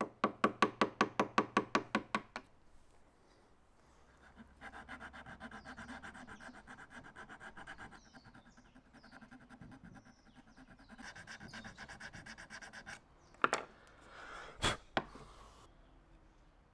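Steel wood chisel scraping and paring the inside edges of holes in a wooden flute half, cutting a rough 45-degree bevel. It starts with a quick run of short scraping strokes, about seven a second, then goes to longer rasping scrapes, with two sharp knocks near the end.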